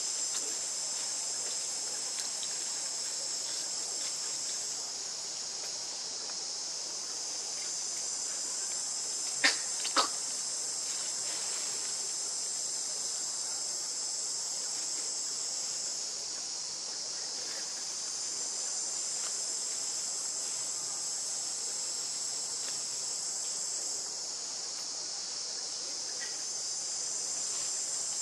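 Steady, high-pitched drone of an insect chorus in the trees, swelling and easing every several seconds. About a third of the way in come two sharp clicks half a second apart, the loudest sounds.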